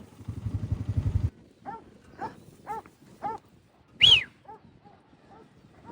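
Working farm dog barking repeatedly, about two short barks a second, with one louder, higher call about four seconds in; the dog is barking while mustering cattle and is then told to be quiet. A low rumble fills the first second.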